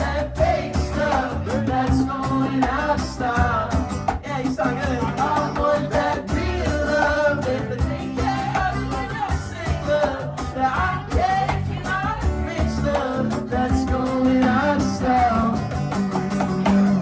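Live band music: a wavering melody line over steady bass, with no clear words.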